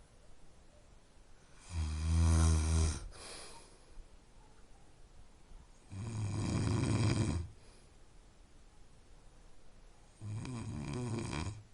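Snoring: three long snores about four seconds apart, each lasting about a second and a half, with quiet gaps between.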